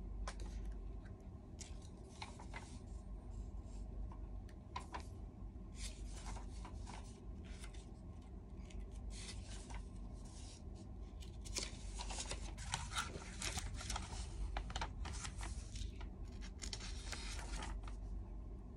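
Paper rustling and crinkling as sheets of photo paper and an instruction booklet are handled. It comes in irregular bursts that get busier in the second half.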